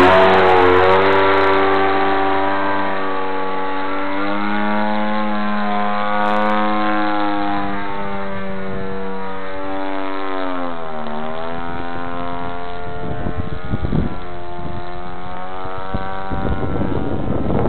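Model aerobatic airplane's motor and propeller running at high power, first holding the plane hanging on its prop in a torque-roll hover, then pulling it up and away. The pitch wavers with throttle changes and drops sharply about eleven seconds in before climbing back.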